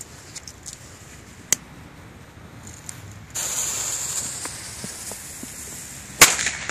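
A small firecracker's fuse hissing steadily for about three seconds, then the firecracker going off in a single sharp bang near the end.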